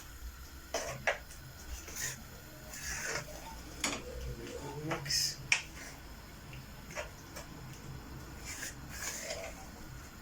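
A spoon knocking and scraping against a cooking pot as diced chicken is stirred into curry sauce, heard as a scattering of sharp clicks and light knocks.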